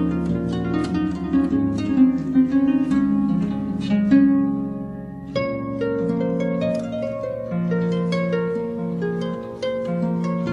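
Gentle plucked harp music: a run of ringing plucked notes over a low held bass tone, with a short lull about five seconds in before the plucking resumes.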